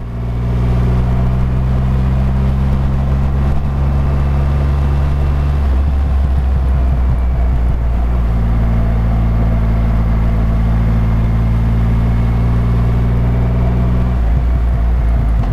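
Triumph Rocket 3 R's 2,458 cc inline three-cylinder engine running steadily while the bike is ridden along, heard from the rider's seat. The engine note changes briefly about six seconds in and again about a second before the end.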